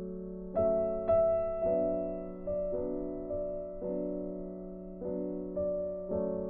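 Soft piano background music: slow chords and single notes struck and left to fade, with a steady low tone held underneath.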